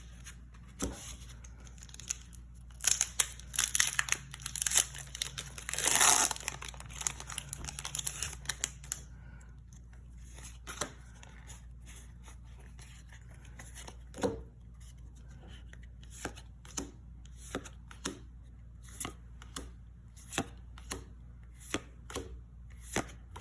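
Foil wrapper of a Pokémon booster pack being torn open and crinkled. Then the cards are flipped one at a time with short soft snaps, roughly one a second or a little faster.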